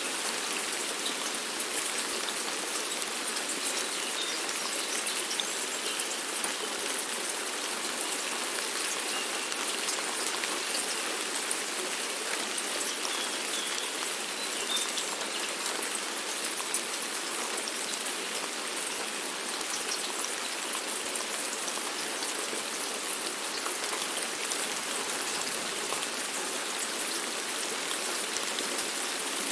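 Steady rain falling, an even hiss of many drops pattering on a surface with fine individual drip ticks, no thunder or wind.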